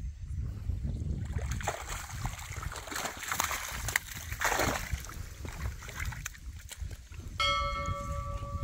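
Water splashing and streaming off a wire-mesh fish keepnet as it is hauled out of the water by its rope, loudest about four and a half seconds in. A steady tone of several pitches starts near the end.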